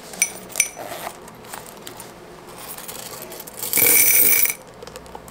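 Loose coins dropped into a change container: two short clinks early, then about four seconds in a handful of change poured in at once, a loud rattle lasting nearly a second with a ringing metallic note.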